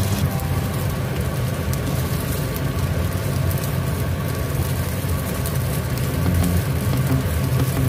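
Stale bread cubes frying in butter in a nonstick pan, a steady sizzle as they are turned with a spatula, over a steady low hum.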